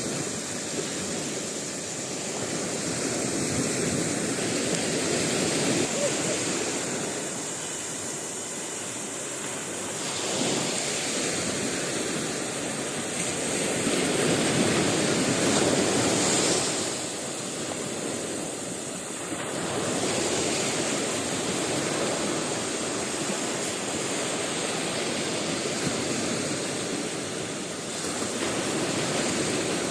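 Sea surf washing onto a sandy beach, a steady rush that swells and eases every few seconds as waves break.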